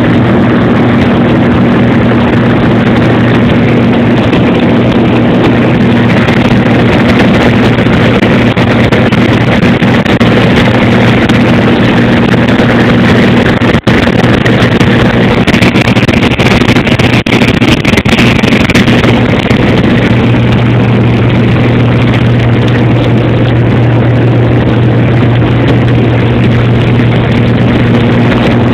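Airplane engine noise heard from inside the cabin: a loud, steady drone with a low hum. There is a brief click about halfway through, followed by a few crackles.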